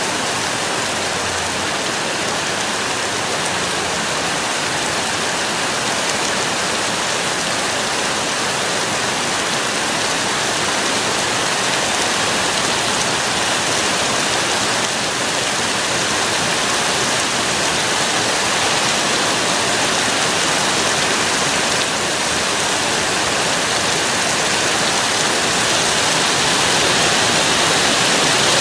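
Heavy thunderstorm rain pouring steadily as an even, dense hiss, growing a little louder near the end.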